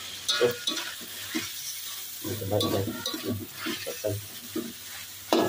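Metal slotted spatula scraping and knocking against an aluminium wok while mangrove clam meat, onion and spring onion sizzle in a spicy soy-sauce stir-fry. The strokes come irregularly over a steady hiss.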